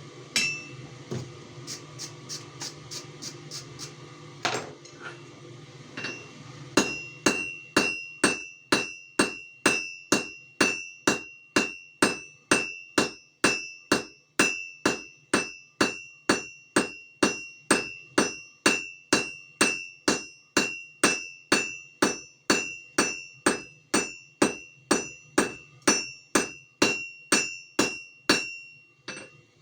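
Hand hammer striking metal on an anvil while forging a leaf: a few lighter taps at first, then from about seven seconds in a steady run of strikes, nearly two a second, each with a clear ringing tone.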